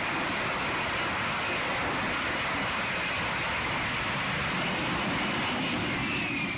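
A Lockheed Martin F-35B's F135 jet engine and lift fan during a vertical landing: a steady rushing jet noise as it hovers and sets down. Near the end a whine comes in, falling slightly in pitch.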